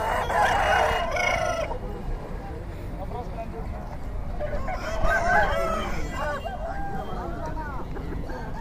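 Roosters crowing and calling. A long call lasting about a second and a half comes at the start, and a cluster of shorter calls follows around five to six seconds in.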